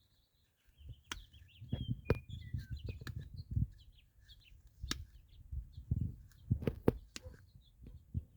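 An oil filter's pleated paper element being cut apart by hand: sharp clicks and low thumps of cutting and handling, with birds chirping throughout.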